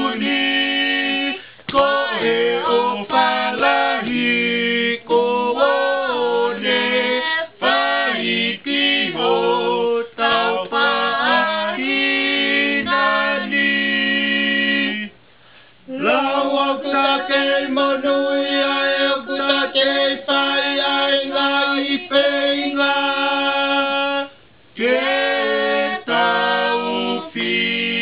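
Young male and female voices singing a song together in harmony, unaccompanied. The singing pauses briefly about halfway through and again near the end, and the second half is sung in long held notes.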